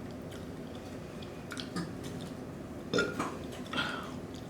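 Close-miked eating sounds: a few quiet, wet mouth smacks and clicks, with a short burp about three seconds in.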